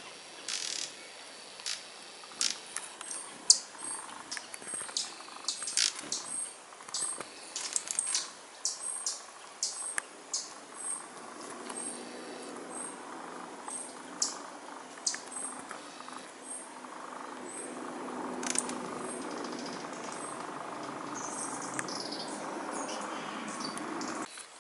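Hummingbirds at a feeder giving short, sharp, high chirps, about one or two a second and thicker in the first half. From about halfway a steady low hum builds up underneath and grows louder, then cuts off abruptly near the end.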